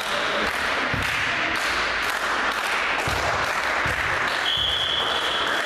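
Referee's whistle blown once as one steady high tone lasting about a second near the end, the signal to serve in a volleyball match. Before it, a few dull thumps on the wooden gym floor over a steady hiss of hall noise.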